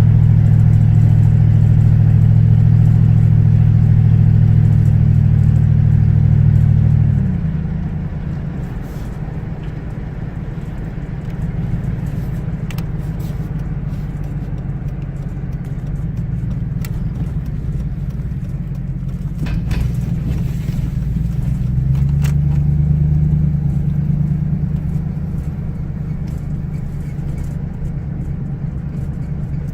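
A car being driven: a steady low engine hum over road noise. The hum drops away about seven seconds in, as if the driver eases off the throttle, and rises again about 22 seconds in, with a few faint clicks just before.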